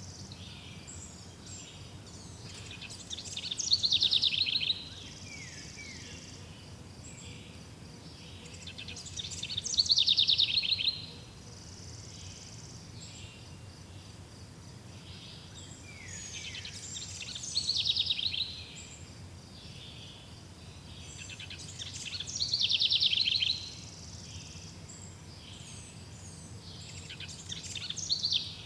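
A songbird repeating a loud, rapid trilled phrase that falls in pitch, about once every six seconds, five times. Under it runs a steady faint background of insects chirring.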